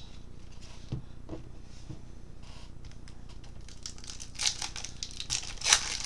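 Plastic wrapper of a baseball card pack crinkling and tearing as it is opened, with a few light clicks of cards being handled; the crinkling comes in two short spells in the second half.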